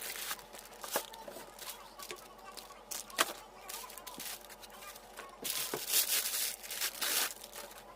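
Packaging handled during an unboxing: rustling, crinkling and tearing with scattered sharp clicks, busiest from about five and a half seconds in.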